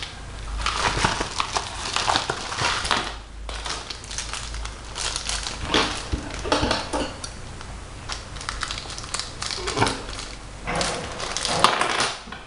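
Packaging crinkling and rustling in irregular bursts as a padded mailer envelope and a small paper or plastic packet are handled and opened by hand, with a few light clicks of small hard items put down on a tabletop, the sharpest near the end.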